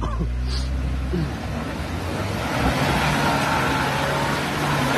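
BAIC BJ40 SUV's engine running hard under load as it climbs a steep mud slope, its revs held steady and edging up a little about halfway through. The tyres are churning through mud.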